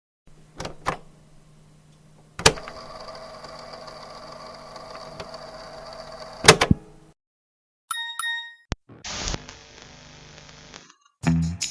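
A run of separate VHS-style sound effects. First come a couple of clicks, then a sharp click that starts a steady machine hum with several held tones, which stops with more clicks. Then comes a short bell-like chime, another click, and about two seconds of static hiss.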